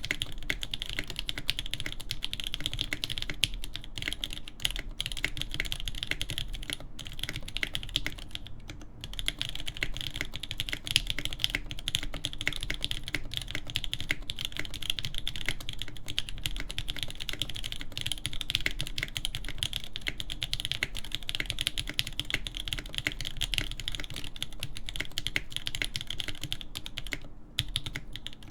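Fast, continuous typing on a Hineybush TKL One mechanical keyboard with a polycarbonate case, full POM plate, lubed Durock L7 linear switches and GMK keycaps: a dense stream of keystrokes, with brief pauses about nine seconds in and near the end.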